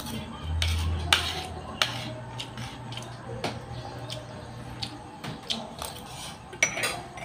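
Metal spoon clinking and scraping against a ceramic plate while eating rice, with a few sharp clinks, the loudest about a second in and near the end.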